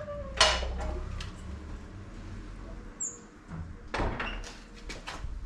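Scattered knocks and clunks of wooden shutters and their fittings being handled, with a brief creak at the start and a cluster of knocks about four seconds in.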